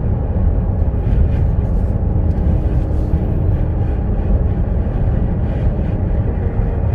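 Steady low rumble of road and engine noise from a car driving along.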